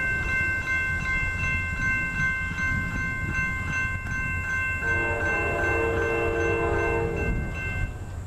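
Grade-crossing warning bell ringing in quick, even strokes, stopping near the end, while an approaching locomotive's horn sounds one long chord for about two and a half seconds from about five seconds in, over a low rumble.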